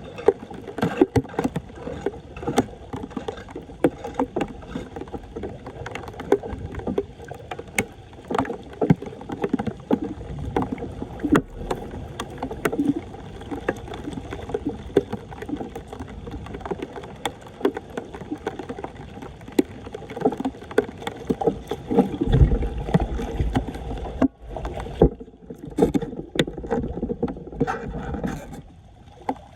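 Floodwater sloshing and splashing with frequent knocks and scrapes as debris is cleared from a clogged street drain. A low rumble comes for a couple of seconds about three-quarters of the way through.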